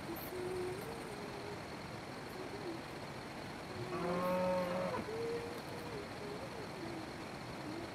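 A cow moos once, about four seconds in, a single steady call lasting about a second.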